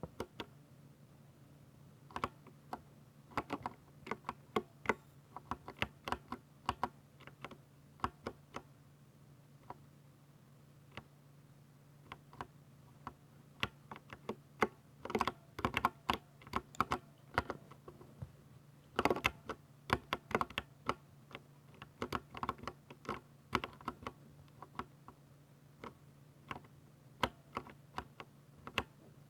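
Typing on a Ducky 60% mechanical keyboard with silver switches: irregular runs of sharp key clacks, sparser in places, with short pauses between bursts.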